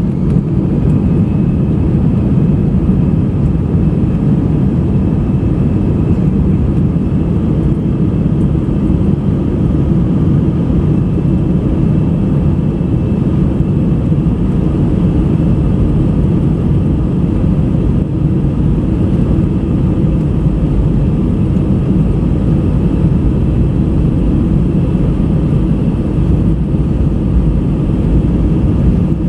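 Airbus A319 jet engines and airflow heard from inside the passenger cabin over the wing: a steady, even rumble with a faint high whine on top.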